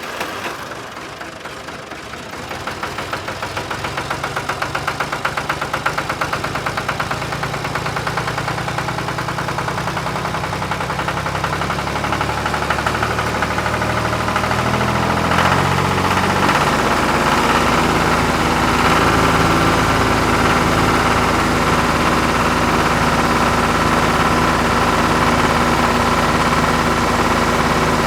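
Tractor engine running with a pulsing beat in the first half, picking up speed about halfway through and then running steadily at the higher speed.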